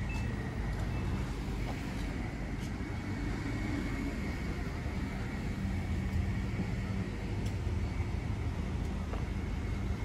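Road traffic: a motor vehicle's engine running with a steady low rumble.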